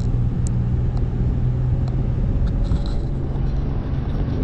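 Steady low drone of a vehicle's engine and road noise while driving, with a few faint clicks.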